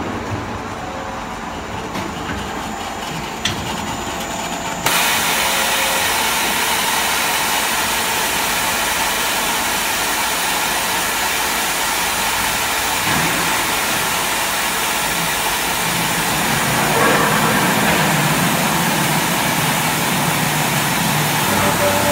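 KEENSAW KCS-100A automatic circular cold saw for metal bar running in its cutting cycle: a steady mechanical hum with a strong hiss. It steps up suddenly in loudness about five seconds in, and higher tones join in around two-thirds of the way through.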